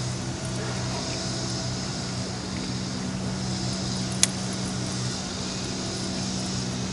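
A steady low mechanical hum, like a motor running, with a hiss over it and a single sharp click about four seconds in.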